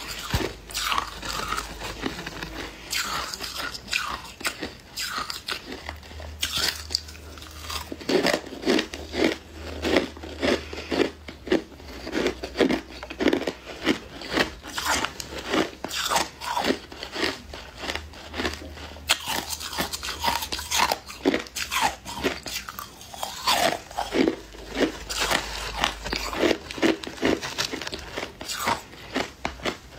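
Shaved, refrozen ice being bitten and chewed: a steady run of crisp crunches, about two or three a second.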